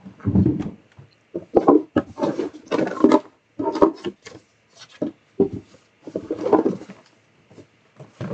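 A man's voice muttering indistinctly in short broken syllables, too unclear to make out as words.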